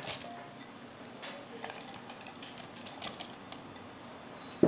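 Faint, scattered light clicks and taps of diced apple cubes dropping into an aluminium saucepan and settling, with one sharper click near the end.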